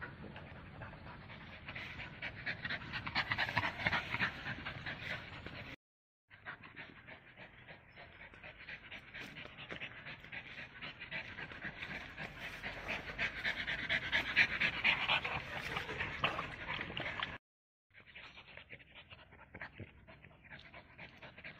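An overweight French bulldog panting hard in quick, rapid breaths after running. The panting cuts off twice into brief silences.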